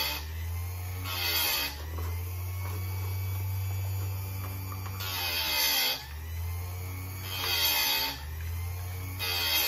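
Chicago Electric electric chainsaw-chain sharpener running with a steady motor hum as its grinding wheel is lowered onto the chain's cutter teeth one after another. Each contact gives a short, harsh grinding rasp as a tooth is sharpened, about five in all.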